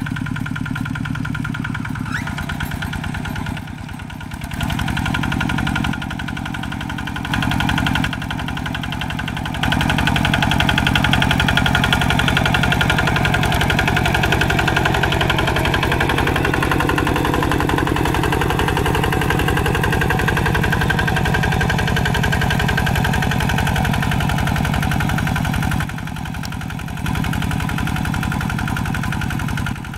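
Single-cylinder diesel engine of a Quick G3000 two-wheel hand tractor running steadily under load while tilling a wet rice paddy. Its loudness steps up and down abruptly several times and is loudest through the long middle stretch.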